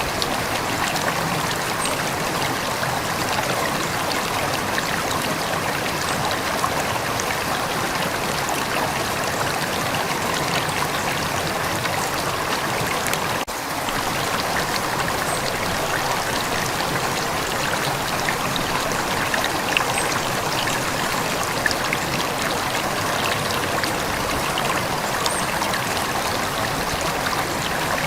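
Calm river water flowing: a steady, even rush and trickle, with a momentary dip in level about halfway through.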